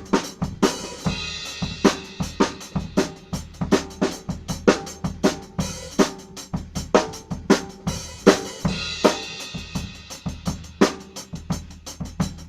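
Drum kit playing a steady groove with a featured snare drum, bass drum and hi-hat, with a cymbal crash about a second in and another around nine seconds in.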